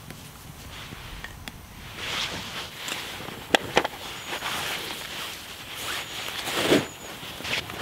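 Rustling and handling of a drawstring fabric pouch as it is opened and rummaged through, with two sharp clicks about halfway and a louder swish of fabric near the end.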